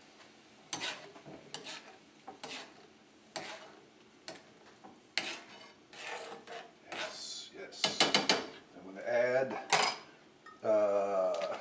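A utensil tapping and scraping against a skillet as a cream sauce is stirred: a sharp clink about once a second, then a busier clatter in the last few seconds.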